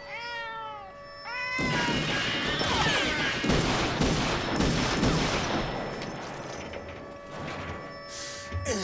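Two short, arched, meow-like cries over a sustained musical drone. About one and a half seconds in, a loud burst of crashing, whooshing action noise takes over and slowly dies away.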